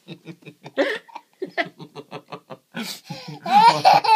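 Toddler laughing hard while being tickled: quick breathy pulses of laughter, a few a second, breaking into louder high-pitched squeals about three and a half seconds in.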